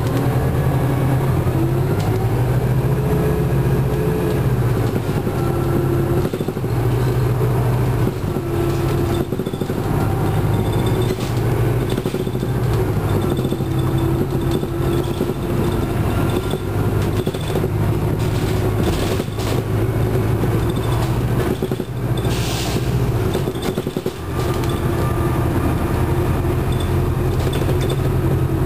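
Detroit Diesel Series 50 inline four-cylinder diesel of a 1996 Nova Bus Classic transit bus running under way, heard from inside the passenger cabin. The engine note rises and drops several times as the bus pulls and eases off, with a few short knocks and rattles from the body.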